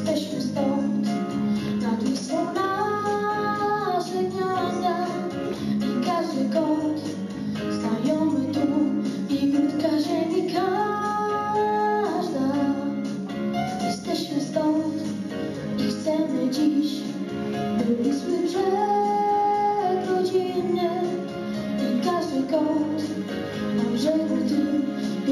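A child singing into a microphone over instrumental backing. The same sung phrase comes round about every eight seconds, each time climbing to a long held note.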